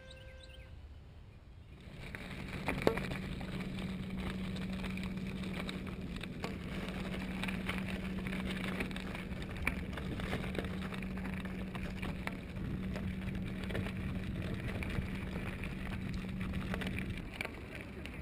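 Handmade front-wheel-drive recumbent trike rolling along a gravel trail, its tyres crackling with many small clicks over a steady low hum that stops near the end. One sharp knock about three seconds in.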